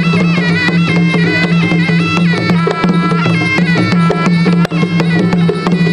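Traditional Khmer boxing ring music: a reedy wind instrument plays a melody that steps between notes over a steady drone, with hand drums beating.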